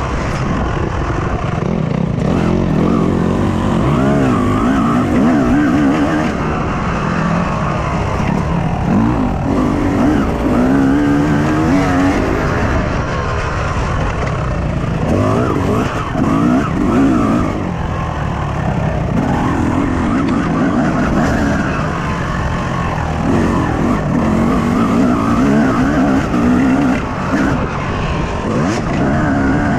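Two-stroke Yamaha YZ250 motocross bike engine heard from on board, revving hard, its pitch climbing and dropping again and again as the rider opens and shuts the throttle through the turns, with wind and dirt noise under it.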